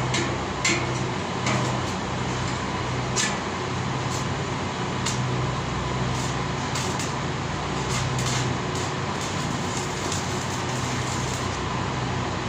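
Steady mechanical hum of running equipment, with scattered light clicks and knocks from work on metal parts.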